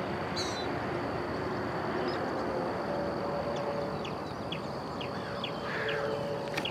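Birds chirping, short high calls repeated every second or so, over a steady outdoor background hiss with a faint low hum. A single click right at the end.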